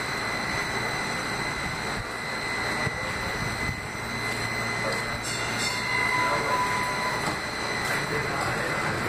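A 2005 Kinki Sharyo light rail car standing at a station with its doors open: a steady hum and hiss of its onboard equipment, with a thin, steady high-pitched whine.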